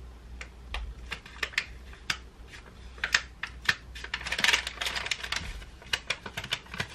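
Paper packaging being handled and unfolded: scattered crinkles and clicks, with a denser stretch of rustling about four and a half seconds in.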